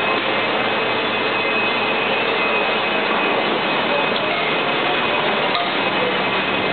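Steady loud hiss and hum of factory machinery and ventilation on a truck-assembly floor, unchanging throughout, with a few faint high steady tones.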